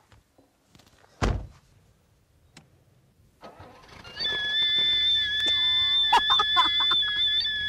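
A car door shuts with a single thunk about a second in. A few seconds later the Rolls-Royce's engine is started and a joke exhaust whistle in the tailpipe sets up a loud, steady, shrill whistle over the low running of the engine.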